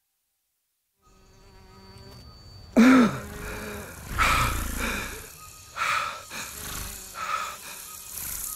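Sound-designed jungle ambience: after about a second of silence, buzzing insects and steady high tones fade in, then loud animal calls sound four times, about a second and a half apart, the first the loudest with a rising-and-falling pitch.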